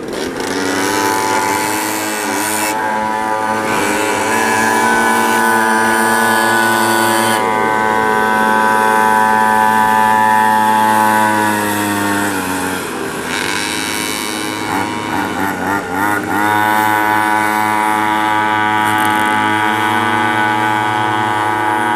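Small high-revving engines of pocket bikes and a mini kart running on the track, the pitch rising and falling with the throttle. The sound dips about halfway through, then climbs back to full revs.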